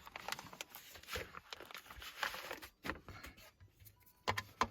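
Packaging being handled: scattered rustles and light clicks, with two sharper knocks near the end.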